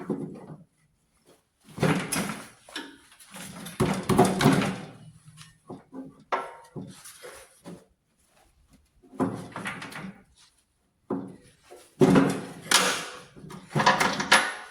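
Metal parts being handled and fitted: irregular clanks, knocks and rattling clatters, some short and some lasting about a second, with quiet gaps between.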